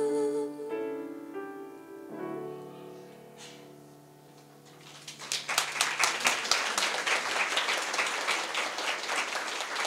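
A grand piano plays the last few chords of a song, which ring and fade away over about three seconds. About five seconds in, an audience starts applauding.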